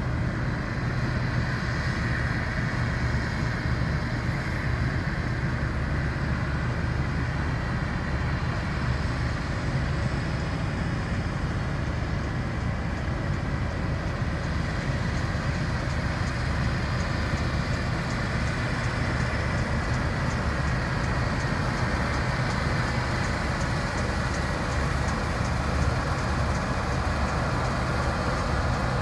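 International combine harvesting wheat: a steady drone of engine and threshing machinery at an even level, with a faint rapid ticking in the second half.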